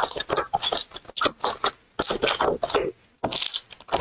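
Wrapped Panini Donruss football card packs crinkling and scraping as they are pulled by hand out of a cardboard mega box and stacked. The sound comes in about four noisy bursts, each roughly a second long, with short breaks between them.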